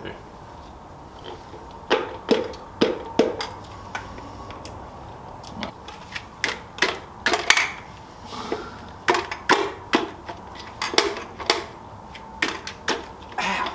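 Loose metal engine parts and hand tools clinking and knocking together at irregular intervals, a couple of dozen sharp hits, while a blown 6.0 LS V8 is being taken apart.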